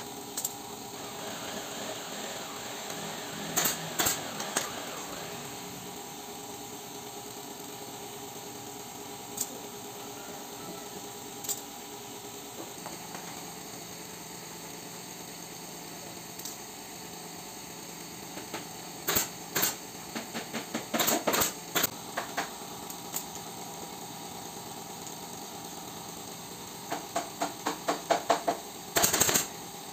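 Pneumatic staple gun firing staples into the black underside cloth of an upholstered sofa frame: a few single sharp snaps, then quick runs of shots about two-thirds in and again near the end. A steady machine hum runs underneath.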